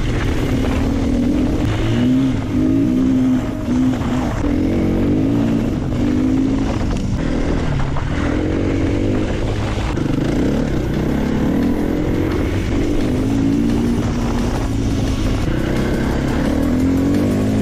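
KTM dirt bike engine running under way on a gravel track, its pitch rising and falling over and over as the throttle is worked.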